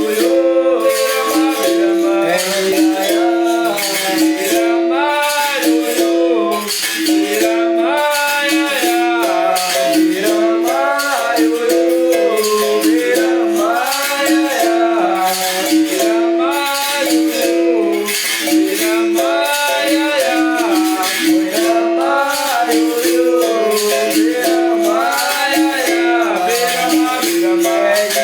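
Bamboo berimbau played in a steady rhythm, its twanging note repeating in a pattern, with the shaken caxixi rattle going along with it and a voice singing over the top.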